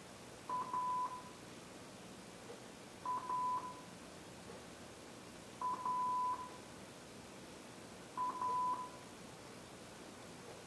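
Television test tone of about 1 kHz, heard through a TV set's speaker: four beeps about two and a half seconds apart, each a few quick pips running into a longer steady tone. It is the off-air signal of a channel that has ended broadcasting.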